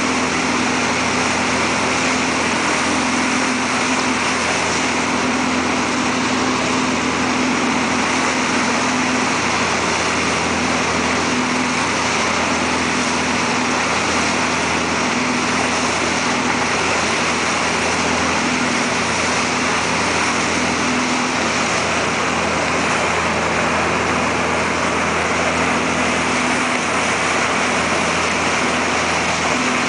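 Tow boat's engine running steadily at speed, a constant hum at one pitch, over the rush of its churning wake.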